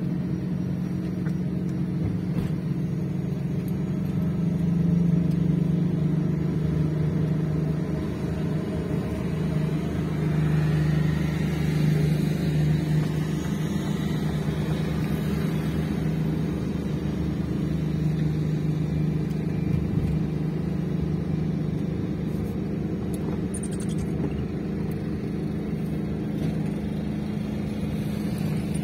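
Car driving at a steady speed, heard from inside the cabin: a steady low engine and road drone that swells slightly now and then.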